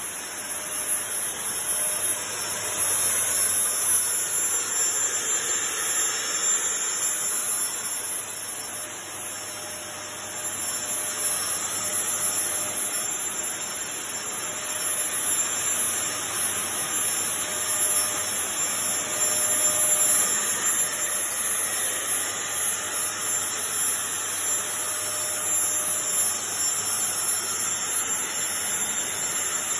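A 20-litre backpack disinfectant mist sprayer running continuously: a steady high whine with a hiss of spray, rising and falling a little in loudness.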